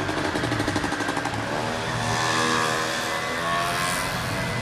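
Electric tram running gear and motors: a rapid ticking for the first second and a half, then a whine that rises in pitch for a couple of seconds and levels off, over a steady low hum.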